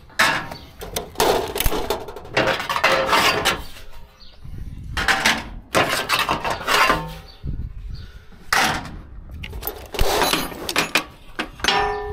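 Polyester ratchet-strap webbing being dragged out from under an IBC tote and over the trailer's metal side rail, in a series of short rubbing swishes, about eight of them.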